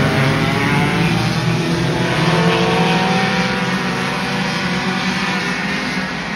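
Several front-wheel-drive race cars' engines running hard on the track, their notes at differing pitches overlapping and easing off slightly in loudness as the cars move away.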